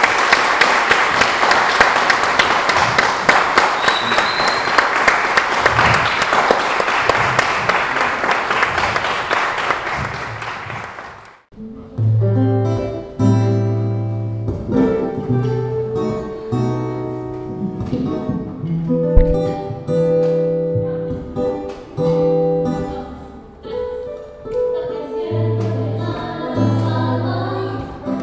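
Audience applauding for about the first eleven seconds, then it cuts off abruptly and live music begins: an accompaniment of held chords over a low bass line, with a small group of young voices singing together near the end.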